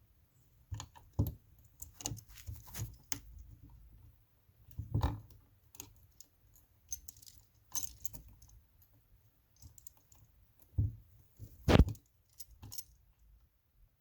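Irregular clicks and light metallic knocks from a screwdriver, copper wire and a new electrical outlet being handled as a heavy-gauge wire is worked onto a terminal screw. The loudest knocks come about a second in, about five seconds in, and twice near the end.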